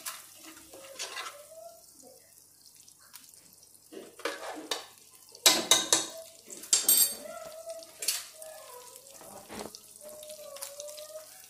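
Steel spoon scraping and clinking against a kadhai of melted butter, in several short clusters of clicks with quieter gaps between.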